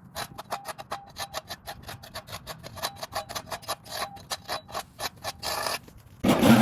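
Rapid, rhythmic scraping strokes, several a second. Near the end, a loud small engine suddenly comes in and runs steadily.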